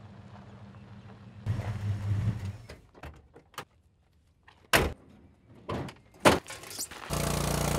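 A pickup truck's engine runs as it pulls in, followed by several sharp clunks as a door shuts and a dirt bike is handled in the truck's tray. Near the end, the small petrol engine of a portable water pump runs steadily.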